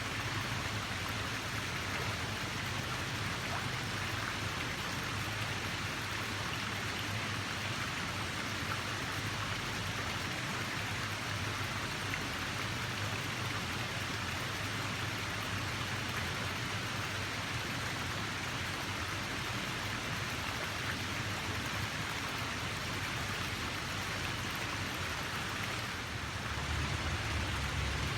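Running water: a steady, even rush with no breaks, its low end growing slightly louder near the end.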